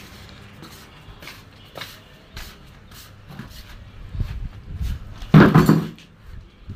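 Handling noise of a phone carried by someone walking: scattered light clicks and knocks, low thumps, and one louder short noise about five seconds in.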